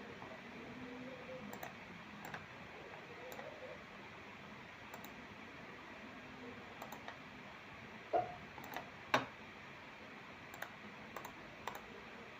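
Sparse, irregular clicks of a computer mouse and keyboard over a faint steady hiss, the two loudest a little past the middle.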